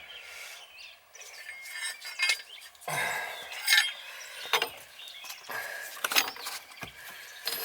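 Metal shower-kit fittings clinking and knocking against each other as they are handled: a scatter of separate clinks and taps, some quick and rattly.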